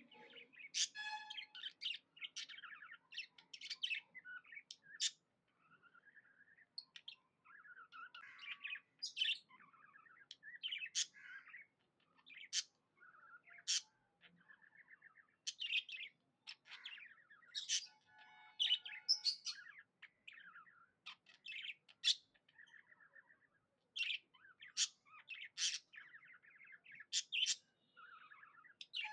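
Budgerigars chirping and chattering: quick, sharp high chirps mixed with warbling chatter, several calls a second with short pauses between runs.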